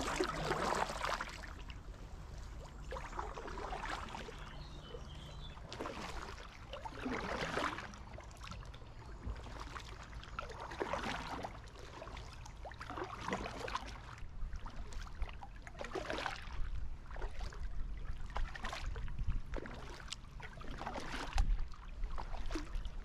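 Kayak paddle strokes: the blade dips and pulls through calm river water, giving a swish and a trickle of dripping water every second or two, alternating sides.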